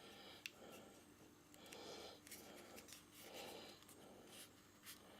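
Faint rustling and a few small clicks of motorcycle wiring and a heat-shrink sleeve being handled as the sleeve is slid onto the wire.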